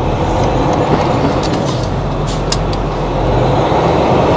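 Peterbilt semi-truck's diesel engine running, heard from inside the cab as the truck pulls away slowly, growing a little louder. A few short clicks sound about two and a half seconds in.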